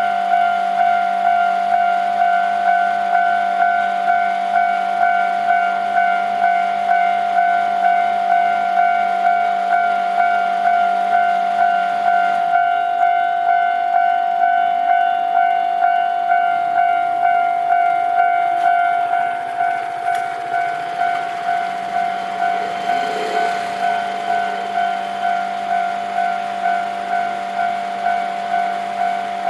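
Railway level crossing warning bell ringing steadily, a single pitched strike repeating about one and a half times a second, a little quieter for the last third. A low hum under it stops about halfway through.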